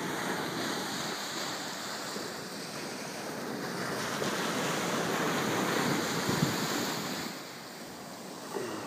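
Small ocean waves breaking and washing up a sandy beach, a steady rushing surf, with wind on the microphone. The rush swells and then drops off about seven seconds in.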